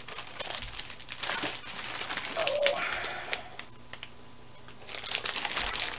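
Irregular clicking and rustling of a wrapped scrapbook paper kit being handled, with a short low tone about two and a half seconds in.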